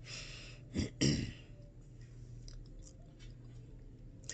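A woman clears her throat twice in quick succession about a second in. This is followed by faint rustling and ticking of paper pages as a paperback guidebook is leafed through.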